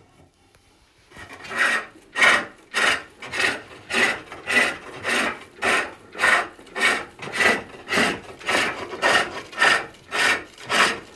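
Hook tool cutting inside a wooden box turning on a pole lathe: a steady rhythm of shaving strokes, about two a second, starting about a second in. Each stroke is a cut on the treadle's down-stroke, with a gap as the cord returns.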